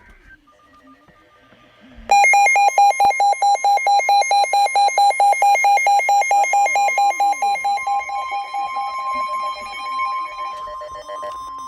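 Emergency Alert System attention signal: a loud electronic tone that starts suddenly about two seconds in and alternates rapidly between two pitches. Near the end a steady single tone takes over as the warbling fades.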